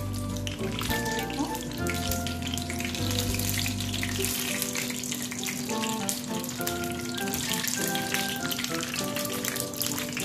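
Battered paneer pakoras sizzling and crackling as they fry in hot oil, under background instrumental music whose bass line drops out about four seconds in.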